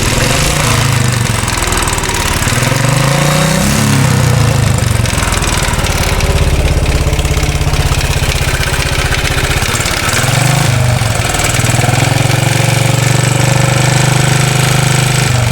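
2013 Royal Enfield Classic 500's single-cylinder engine idling with an oscillating rattle, blipped up and back down about three seconds in and again briefly near ten seconds. The owner suspects the rattle comes from the tappets or rockers.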